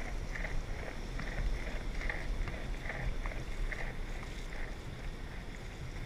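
Wind rumbling on the microphone over a wash of shallow surf, with a run of small splashes, about two or three a second, as feet wade through ankle-deep foamy seawater. The splashes fade out about two-thirds of the way through.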